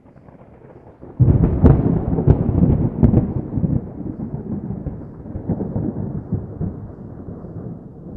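Thunderstorm: rain falling, then a sudden crack of thunder about a second in, with several sharp cracks, rumbling on and slowly fading.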